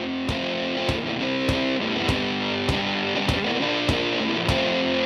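Background rock music: electric guitar over a steady drum beat.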